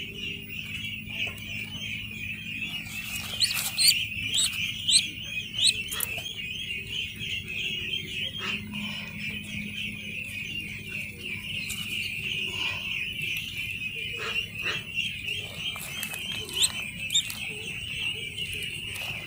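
Dense, steady chorus of peeping from a flock of 16-day-old ducklings, with a few louder single calls standing out a few seconds in.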